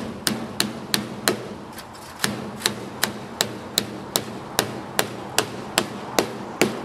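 Small claw hammer tapping in a staple to fasten braided chicken wire: a quick, even run of light strikes, about two or three a second, with a short break about two seconds in.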